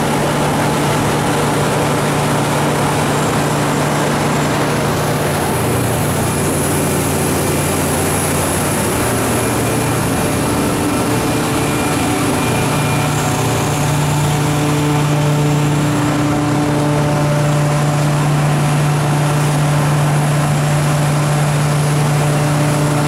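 Cummins GTA28 natural gas engine of a 500 kW generator set running steadily: a loud, even hum with a strong low tone, heard outside its sound-attenuated enclosure.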